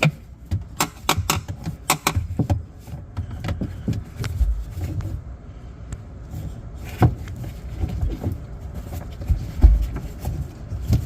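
Irregular clicks and knocks of a hand tool prying at a plastic clip inside a pickup truck's rear door, with a couple of dull low thumps.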